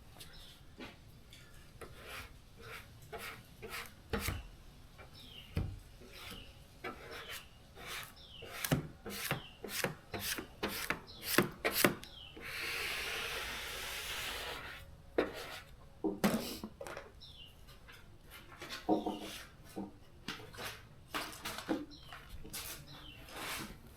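Short scraping and tapping sounds of a vinyl side-stripe graphic being rubbed and pressed onto a car's body panel, irregular throughout. About halfway through comes a steady hiss lasting about two seconds.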